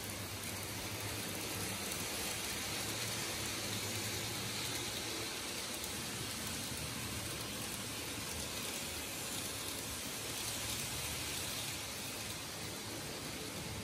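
N gauge model trains running on the layout's track: a steady, even whirring and rolling noise with a hiss-like top.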